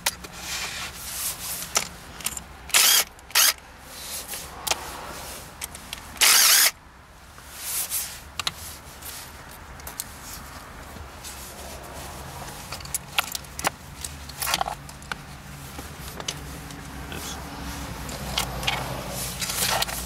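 A power drill runs in several short bursts, the longest about half a second a little over six seconds in, as it backs out the 10 mm cap screws holding down a Mazda Miata's shift-lever dust boot retainer. A low steady hum sits underneath.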